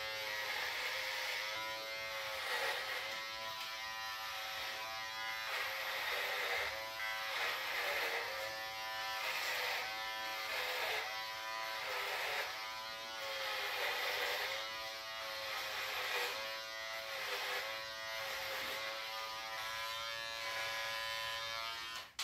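Philips electric beard trimmer running with a steady buzz. Its pitch dips briefly about once a second as the blades drag through thick beard hair. It is switched off at the very end.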